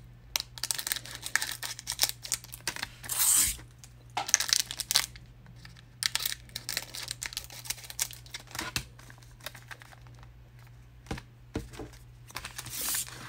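Scissors snipping open foil trading-card packs, the foil wrappers crinkling and rustling as they are handled, in scattered clicks and short crinkly bursts.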